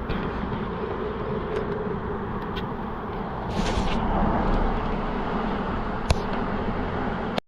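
Honey bee swarm buzzing steadily as the bees are worked into a nuc box, over a low rumble, with a sharp tap about six seconds in. The sound cuts off abruptly near the end.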